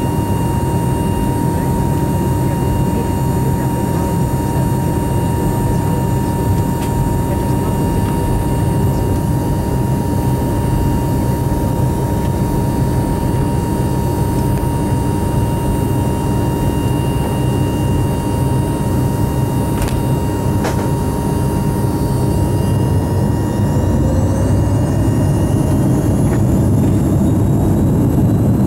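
Cabin noise of a BAe 146-100's Lycoming ALF 502 turbofans, heard from a window seat beside the engine: a steady hum with a whistle. About two-thirds of the way in, the engines spool up for the takeoff roll, with whines rising in pitch as the noise grows louder.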